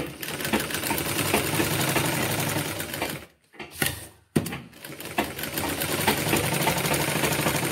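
Sewing machine stitching through cotton fabric in rapid, even needle strokes. It stops about three seconds in, gives a brief burst, then runs steadily again.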